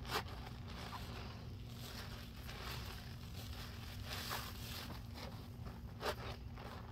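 Sponges soaked in thick dish-soap and baking-soda foam squeezed by gloved hands: wet squishing and crackling of the foam, with a few sharper squelches, the loudest just after the start and about six seconds in.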